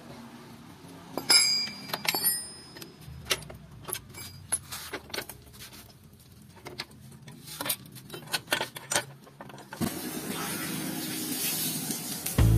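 Metal tools and parts clinking and clanking at the rear of a motorcycle as the exhaust is worked on, with a ringing metal clank about a second in. About ten seconds in, water poured from a bucket splashes over the motorcycle and the concrete floor.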